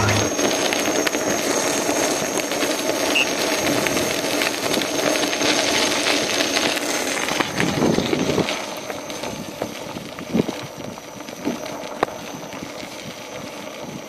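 Wind rushing over the microphone and a tyre rolling on a dirt-and-gravel path during an electric unicycle ride. The noise drops after about eight seconds, followed by a few sharp knocks.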